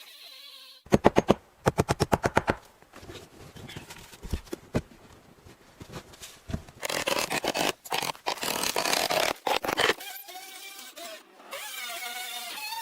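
House-building work with tools: a fast run of sharp knocks, then scattered taps and a few seconds of rasping noise, ending in a whine that bends up and down in pitch.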